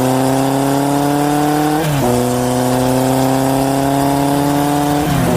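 A vehicle engine accelerating. Its pitch climbs slowly, drops sharply about two seconds in as if at a gear change, then climbs again and drops once more near the end.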